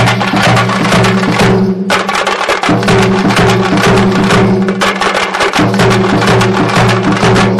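Folk dance music driven by fast, dense drumming in the style of the Tamil parai frame drum, over a low held bass tone that drops out briefly twice.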